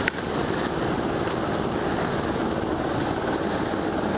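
Go-kart running at speed around an indoor track, heard from on board as a steady engine and rolling noise. There is a brief click right at the start.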